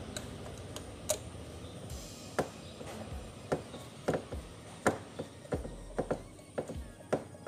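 Socket wrench working a bolt loose on a scooter's airbox: a string of sharp, irregular metallic clicks, roughly one or two a second.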